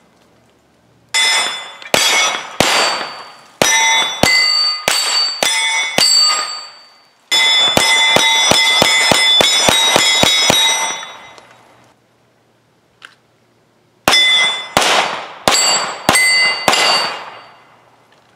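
Strings of 9mm pistol shots from a Glock 17 firing 147-grain ammunition, each hit making a steel knockover plate ring. There are short groups of single shots, then a fast run of about ten shots with the plates ringing together, and a final group of five.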